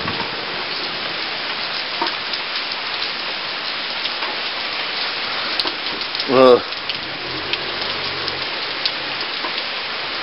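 Rain falling steadily, an even hiss with scattered drop ticks. A brief rising voice-like cry cuts in about six and a half seconds in.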